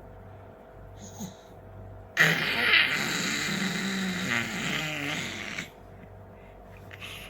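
A baby making a loud, raspy, noisy vocal sound. It starts abruptly about two seconds in and lasts about three and a half seconds.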